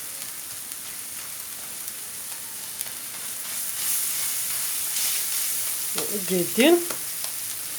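Chopped onion, tomato, garlic and spices sizzling in hot oil in a frying pan, a steady frying hiss with a few scrapes of stirring.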